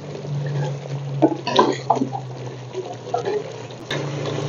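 Chicken pieces frying in ghee in a clay karahi, sizzling and bubbling as a wooden spatula stirs them, with irregular crackles and scrapes.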